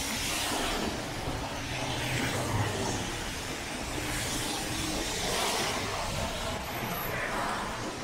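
Road traffic: cars passing on a city street, their tyre and engine noise swelling and fading several times.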